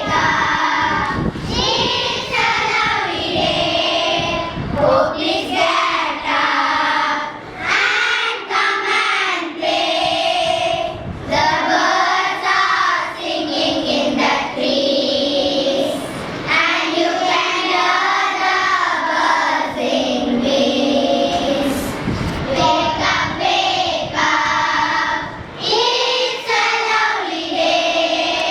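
A group of young children singing a song together, phrase after phrase with short breaks between lines.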